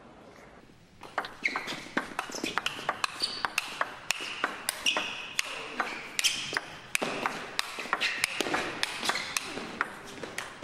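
Table tennis rally: the ball clicking rapidly off the bats and the table, several hits a second, with short squeaks of the players' shoes on the court floor. It starts about a second in, after near quiet.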